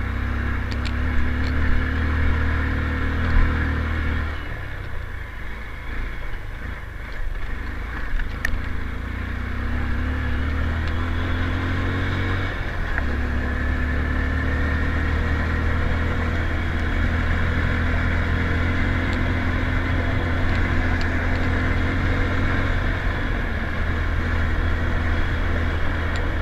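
Motorcycle engine running as the bike is ridden, heard from on board. The engine note fades back about four seconds in, then returns strongly after about twelve seconds and runs steadily.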